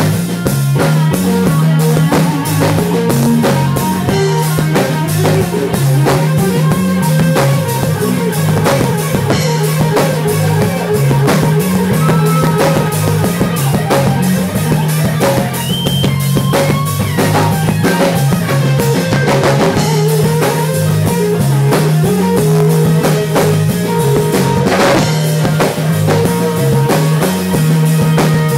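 Live blues band playing an instrumental stretch: electric guitar lead with bent notes over a repeating electric bass riff and a drum kit.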